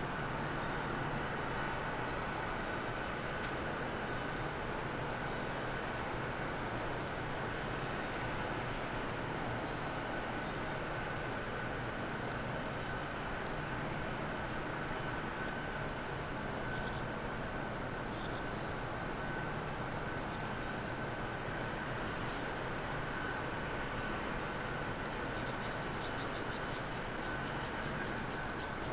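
Small birds calling with many short, high chip notes, a few each second, over a steady hiss of outdoor background noise.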